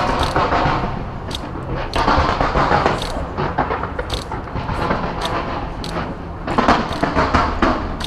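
Aerial fireworks going off in rapid succession: many overlapping bangs with crackling in between, heaviest in two busy stretches about two seconds in and near the end.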